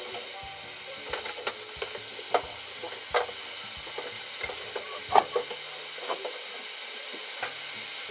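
Yakisoba noodles with bean sprouts and pork mince sizzling in a frying pan over high heat, freshly coated with sauce, while being tossed with chopsticks. Irregular clicks and taps of the chopsticks against the pan run through the steady sizzle, the sharpest about five seconds in.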